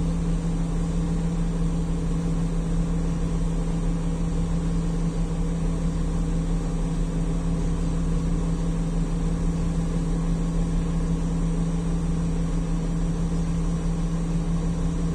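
Don Roque 150 combine harvester's diesel engine running steadily at low speed as the machine is eased slowly backwards, with a steady hum.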